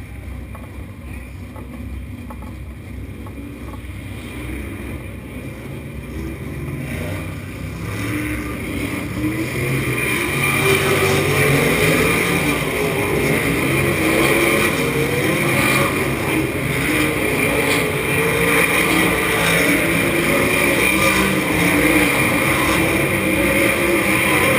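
Open-wheel dirt race car's engine heard from the cockpit, low at first and getting louder from about eight seconds in, its pitch wavering up and down with the throttle.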